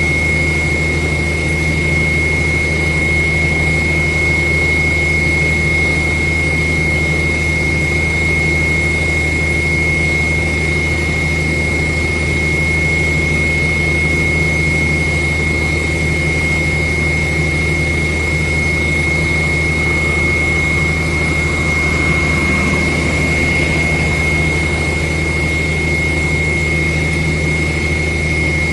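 Steady engine drone of a borewell drilling rig and its air compressor running continuously, with a constant high whine over a low hum.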